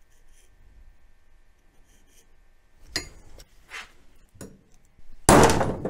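Faint handling sounds and a couple of light clicks, then, about five seconds in, a single loud hammer blow on a steel center punch, marking a bolt hole in steel tubing, with a short metallic ring after it.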